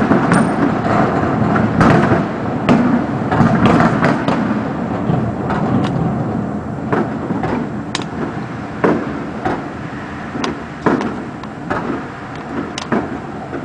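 Fireworks going off in rapid succession: a dense run of booms and bangs over a rumbling background, thinning to separate sharp cracks in the second half.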